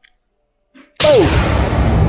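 Near silence for about a second, then a sudden loud boom-style impact sound effect with a brief falling tone, followed by a sustained hissing rumble.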